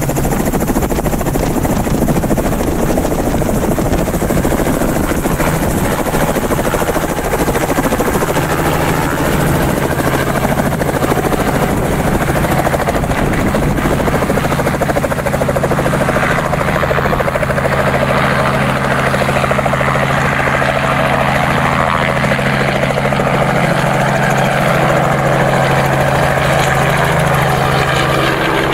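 Robinson R44 helicopter's rotor and piston engine running at close range as it lifts off from the ground and hovers low overhead. It is a steady, loud rotor chop and engine drone, whose low hum grows stronger about a quarter of the way in as the helicopter takes off.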